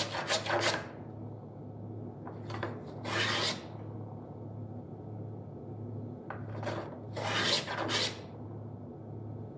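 Small wooden hand plane cutting along the edge of a wooden board: two separate scraping passes, one about two and a half seconds in and a longer one about seven seconds in, with quiet between.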